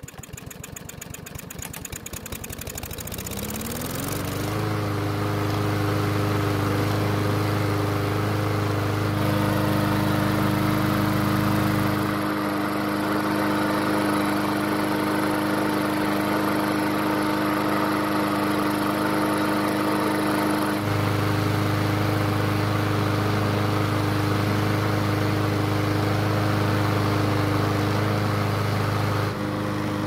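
Yard Machines push mower's small four-stroke engine running slowly just after starting, its speed gradually climbing over the first four seconds before it settles into a steady run. The slow start is a sign the owner guesses comes from a blockage in the carburettor that restricts fuel flow.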